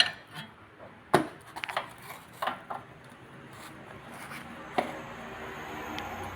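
A few sharp knocks and clinks of loose metal suspension parts being handled, the strongest about a second in and another near five seconds, followed by a faint steady hum.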